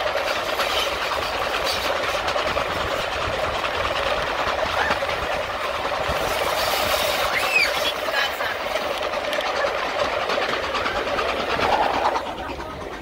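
Steam-hauled passenger train running, a steady rumble of the locomotive and coaches, with people's voices mixed in.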